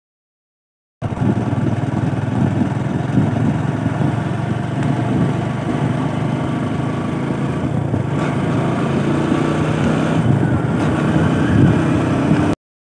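Motorcycle engine running steadily while riding at road speed, mixed with wind and road noise. It starts abruptly after about a second of dead silence and cuts off suddenly just before the end.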